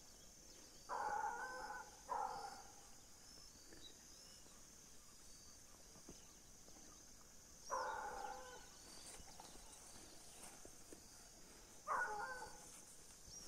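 Hunting dog baying faintly in the distance, four short calls spread out: a hound running a paca's trail.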